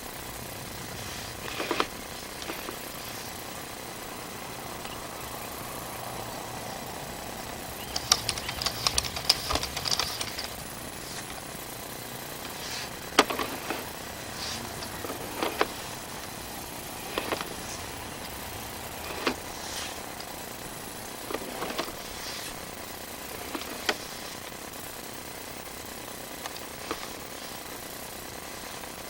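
Sewer inspection camera push cable and reel rattling and clicking as they are handled. There are scattered clicks and knocks, with a burst of rapid clicking about eight seconds in, over a steady background hiss.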